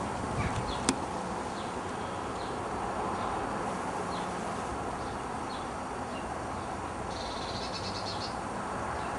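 Garden ambience: a steady background hiss with faint, short bird chirps here and there, a sharp click about a second in, and a rapid pulsed chatter about seven seconds in.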